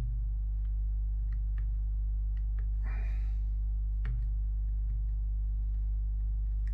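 Steady low hum, with faint scattered clicks and a brief rustle about three seconds in, as small plastic parts of a car instrument cluster are handled.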